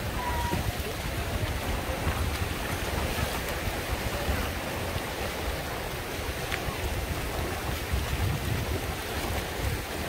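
Surf on a shallow sandy beach: small waves breaking and washing up the sand in a steady rush, with wind buffeting the microphone in gusts.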